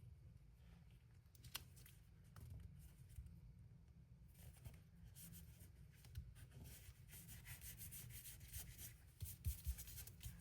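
Near silence with faint rubbing and a few light ticks, from Tombow multi-purpose liquid glue being spread over a cardstock piece. The rubbing grows a little busier from about halfway through.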